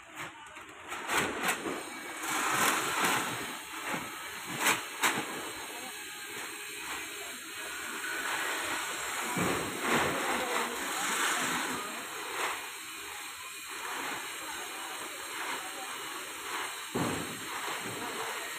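Foil barrier wrapping crinkling and rustling as it is handled and pulled off a machine, with a few sharp crackles in the first several seconds.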